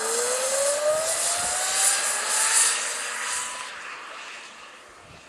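Electric go-kart's motor whining, rising steadily in pitch as the kart accelerates, over a high hiss, then fading as it drives away.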